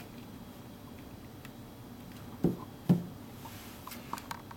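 Two dull thumps about half a second apart, a little past halfway, then a few faint light clicks near the end, over quiet room tone.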